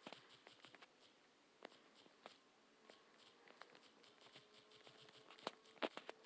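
Quiet, irregular clicks of fast typing, with two louder clicks near the end.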